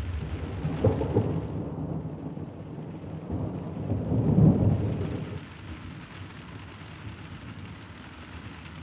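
Thunder rumbling over steady rain. The rumble swells about a second in and again more strongly around four seconds in, then dies away after about five seconds, leaving the rain.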